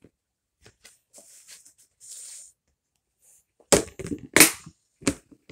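Plush toys handled on a bed: faint fabric rustling, then from about two-thirds in a quick run of loud, sharp knocks and thuds.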